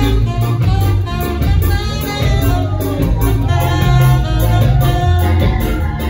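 Live ska-jazz band playing, with a tenor saxophone over a bass line and drums.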